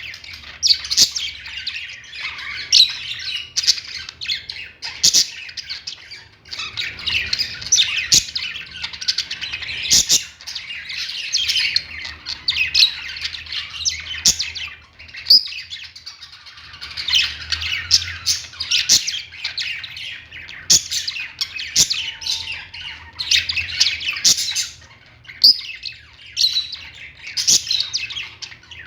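Birds chirping and squawking in a dense, near-continuous chatter, with a few sharp clicks scattered through it.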